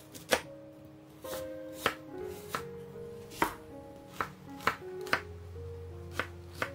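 Kitchen knife chopping a peeled pear and then an onion on a wooden cutting board, the blade knocking the board in about nine sharp, irregular strikes. Soft background music runs underneath.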